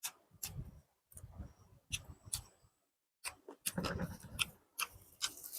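Close-miked chewing of biryani rice and chicken curry: irregular wet mouth clicks and lip smacks, several a second.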